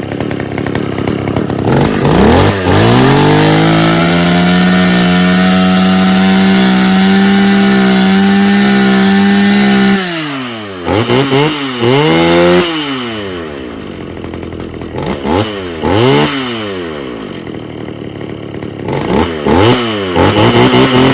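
Two-stroke chainsaw engine revving up to full throttle and held there for about seven seconds, then dropping back and blipped in a series of short revs.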